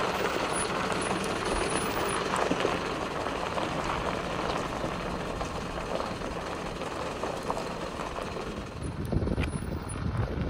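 Mercedes-Benz Vario 818 camper truck's diesel engine running as the truck crawls slowly over a rough gravel off-road track, heard from outside the vehicle. Wind starts buffeting the microphone near the end.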